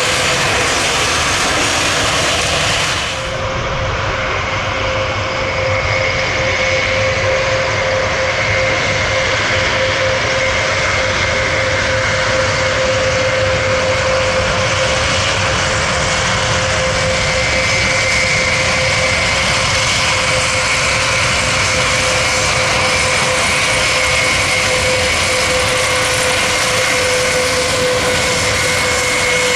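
Engines of a large aircraft running steadily: a continuous roar with a steady whine over it. The highest hiss drops away suddenly about three seconds in.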